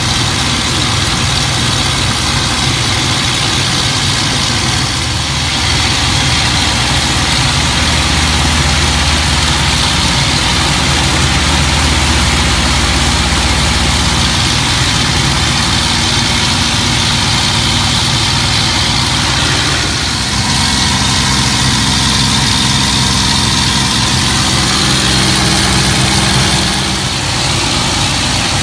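Packard Merlin V-12 engine of a P-51D Mustang running in flight, heard from inside the cockpit: a loud, steady drone whose pitch shifts slightly a few times.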